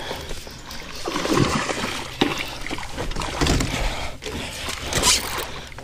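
Water splashing in irregular bursts beside a kayak as a hooked largemouth bass thrashes at the surface during the fight.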